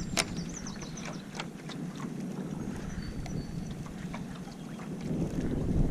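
Outdoor ambience on a small fishing boat: low wind noise on the microphone that eases after the first second, with scattered light clicks and ticks of tackle or boat handling.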